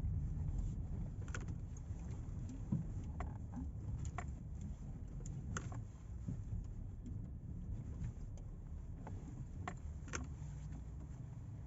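Campervan moving slowly, with a low steady rumble and a scattering of faint, irregular small clicks.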